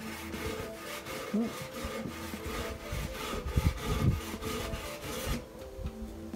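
Rapid, rhythmic scraping strokes, several a second, that stop abruptly about five seconds in.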